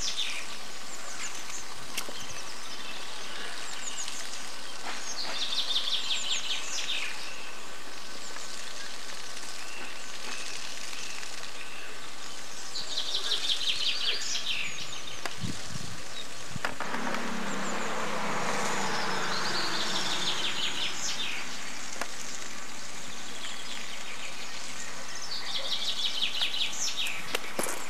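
A songbird repeats the same short trilled phrase about every seven seconds over a steady outdoor hiss.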